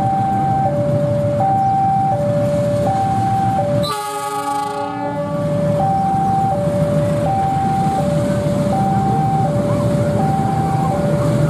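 Level-crossing warning alarm sounding two alternating tones, high then low, each about three-quarters of a second long, over the low rumble of an approaching diesel locomotive. About four seconds in, the locomotive sounds its horn for about a second.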